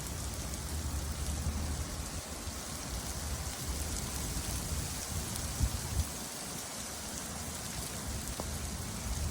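Steady rain falling and pattering on surfaces, with two short dull thumps a little past halfway.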